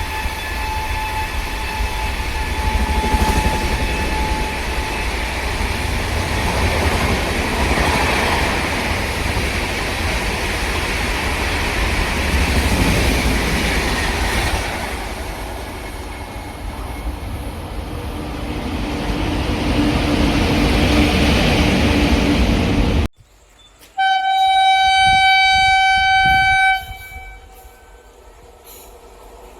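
A train passing at speed with a continuous heavy rumble, its horn fading out over the first few seconds. After an abrupt cut, a train horn sounds one steady note for about three seconds, then everything drops to a low background.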